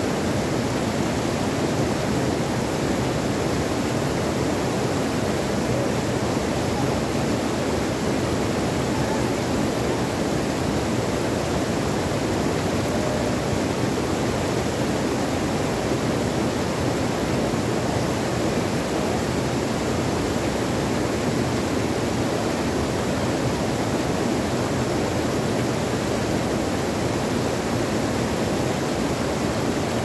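Stream water rushing over small cascades between boulders: a steady, even rush that does not change.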